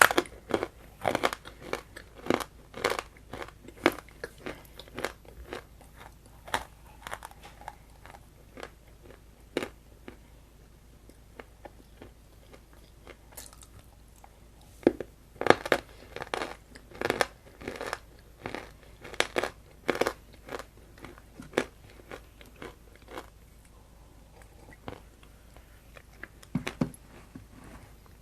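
Close-up crunching: a person biting and chewing something crunchy, in clusters of sharp crunches. Busy in the first few seconds and again in the middle, with sparser bites in between and toward the end.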